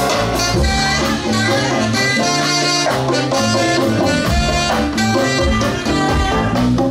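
Live funk band playing loud and steady: drum kit, electric bass, electric guitars, keyboards and congas.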